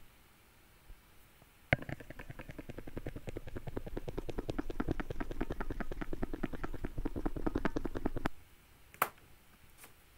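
Stylus scrubbing quickly back and forth over a drawing tablet to erase on-screen ink, heard as a fast, even run of ticks for about six seconds. A sharp click comes before the scrubbing and another near the end.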